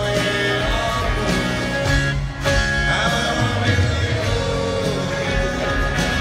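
A live rock band playing a song, recorded on a phone from the crowd: electric guitar with singing.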